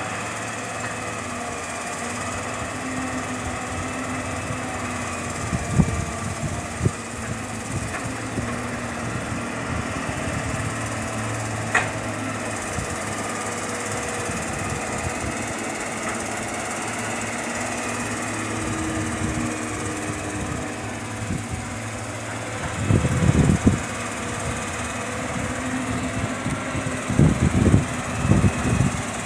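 Hitachi EX200-1 hydraulic excavator's diesel engine running steadily as it works, with irregular heavy thumps and knocks of soil and rocks. The knocks are loudest about three-quarters through and again near the end, as the bucket dumps its load into the dump truck's steel bed.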